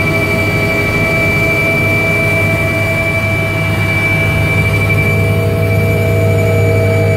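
Helicopter cabin noise in level flight: a steady low rumble of the rotor and engines with a constant high whine over it, loud and unchanging.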